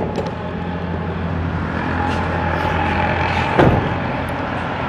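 Steady low vehicle rumble with a single sharp knock about three and a half seconds in.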